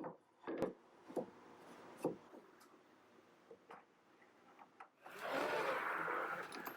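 Plywood pieces knocking as they are handled and set in place, four short knocks in the first two seconds, then a steady scraping noise from about five seconds in.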